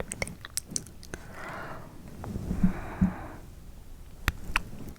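Close-miked ASMR mouth sounds: a few soft mouth clicks, then two breaths of about a second each, then two sharp mouth clicks near the end.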